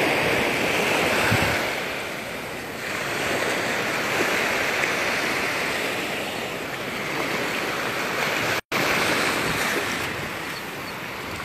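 Gulf of Mexico surf washing onto the beach: a steady rush of small waves that swells and eases every few seconds, cutting out for an instant about two-thirds of the way through.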